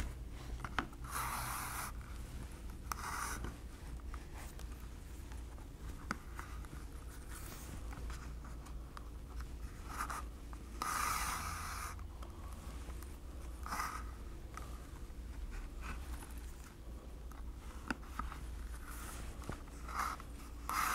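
3/16 inch Florentine lace being drawn through the punched holes of a leather holster in a whip stitch: soft rubbing swishes every few seconds as each stitch is pulled tight, with a few light clicks between.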